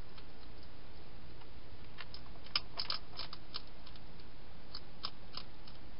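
A wild hedgehog chewing dry food: a run of crisp clicks and crunches about two seconds in and a few more near the end, over a steady hiss.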